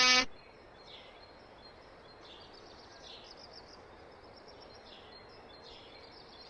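Quiet outdoor background ambience with small birds chirping softly at intervals, just after a loud pitched tone cuts off in the first moment.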